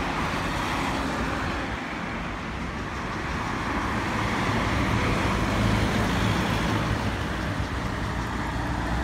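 Road traffic passing on a street: a steady wash of tyre and engine noise that gets a little louder about halfway through.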